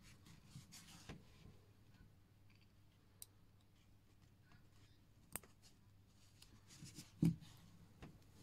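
Faint clicks and light handling noises of small tools and parts on a watch movement at a workbench, with a louder dull knock about seven seconds in.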